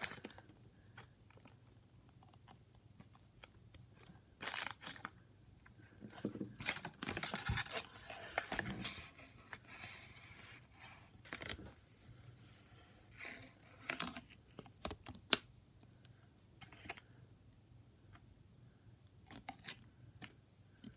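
A crinkly plastic wrapper and a folded paper checklist rustling and crinkling as they are handled and unfolded, in short scattered bursts with quiet gaps between.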